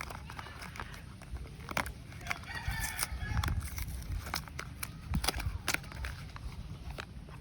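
Soap packaging being handled and opened: a run of short crinkles and clicks. A rooster crows in the background about two to three and a half seconds in.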